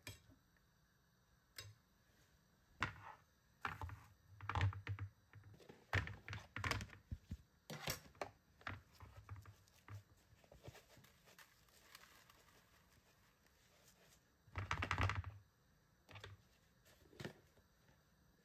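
Scattered clicks, taps and scrapes of kitchen handling: a metal spoon working batter in a ceramic bowl, and breadcrumbs tipped from a plastic tub onto a woven wicker tray. A louder clatter lasting about a second comes late on.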